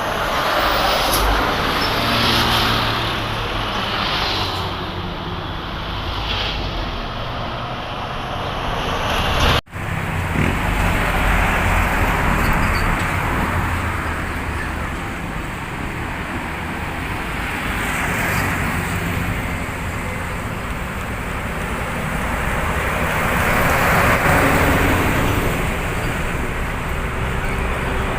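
Motorcycles and cars passing one after another on a busy road, a continuous traffic noise that swells and fades as each vehicle goes by. The sound breaks off for an instant about ten seconds in, then carries on.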